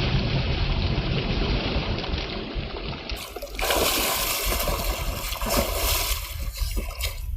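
Water splashing and sloshing, a steady wash of noise with small splashes, changing abruptly about three and a half seconds in as to another take of the same kind of water sound.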